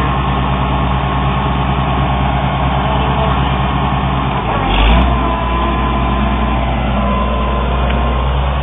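Oliver 770 tractor's six-cylinder engine running steadily, with one heavy thump about halfway through.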